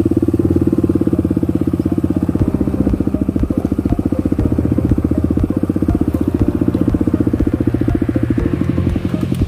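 Dirt bike engine running at low revs with a steady, rapid beat of firing strokes while the bike moves slowly down a gravel trail.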